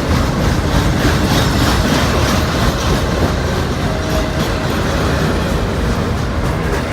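Norfolk Southern freight train rolling past at close range: a steady rumble of cars with the wheels clicking over rail joints. No horn is sounding.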